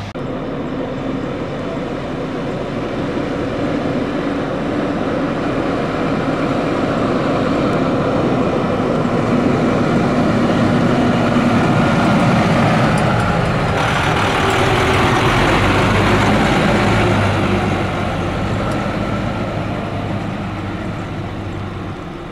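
A large engine-powered vehicle passing by: steady engine noise swells for about twelve seconds, its pitch drops as it goes past, then it fades away.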